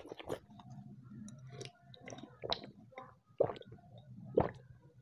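Close-miked eating sounds: a person chewing and slurping spoonfuls of vegetable soup, a string of short wet mouth sounds, with louder slurps or gulps in the second half as the bowl is drunk from.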